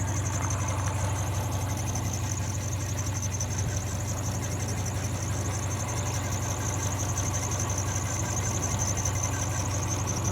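2003 Subaru Forester engine idling, with a rapid, evenly repeating high-pitched chirp or squeak over the low engine hum. The owner first took it for the drive belts, but it is still there with the belts tightened.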